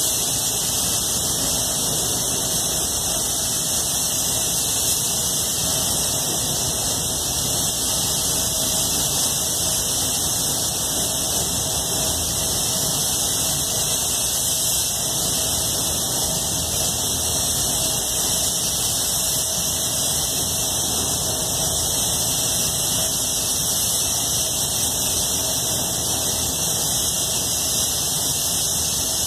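Iwata Supernova spray gun laying clear coat, a steady hiss of atomising air with no breaks, over the rush of the spray booth's airflow.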